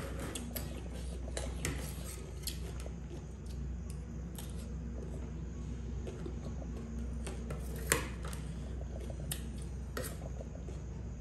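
Metal spoon and fork scraping and clinking on a ceramic plate as noodles are scooped up, with a sharper clink about eight seconds in, over a steady low hum.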